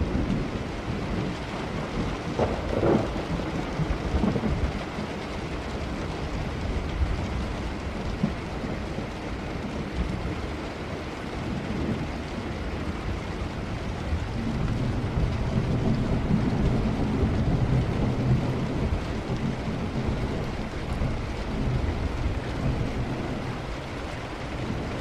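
Steady heavy rain with thunder rumbling low beneath it. A long, deeper roll of thunder builds a little past halfway and fades near the end.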